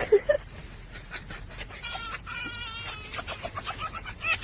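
An animal calling: a few short calls, then one long wavering call about two seconds in.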